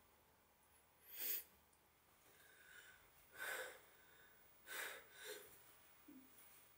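A man's heavy breaths: three loud, sharp breaths spread over about four seconds, with a softer one just after the last.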